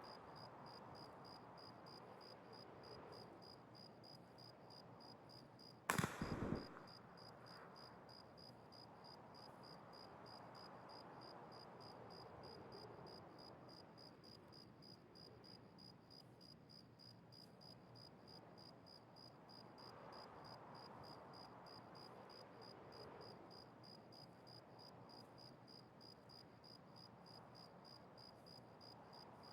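Crickets chirping in a steady, rapid, high-pitched pulse, with a single sharp pistol shot from a Makarov about six seconds in, ringing out briefly.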